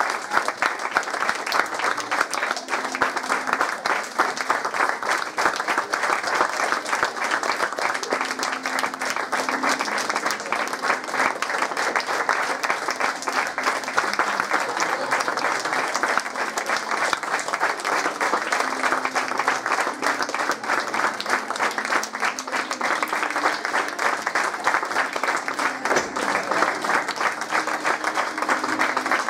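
Theatre audience applauding at the end of a performance: dense, steady clapping from many hands.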